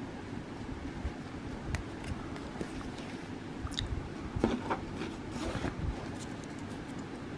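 Soft handling noises of cross stitching: scattered light clicks, scrapes and rustles of needle, thread and fabric, busiest in the middle, over a low steady hum.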